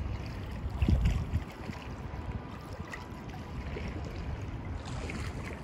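Swimming-pool water sloshing and trickling close to the microphone, with wind buffeting the mic; the low rumble is loudest about a second in.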